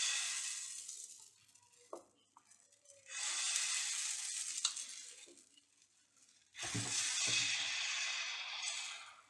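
Sizzling on a hot dosa griddle, three times, each time for about two seconds.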